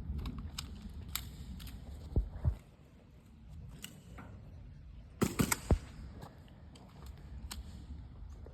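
Airsoft gun firing: a quick run of four sharp pops a little past the middle, with faint scattered clicks around them. Two dull thumps come about two seconds in.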